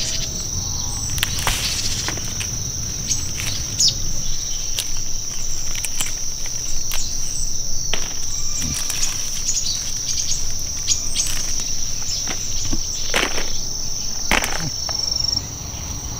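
Insects shrilling in a steady high-pitched drone, with scattered clicks and knocks.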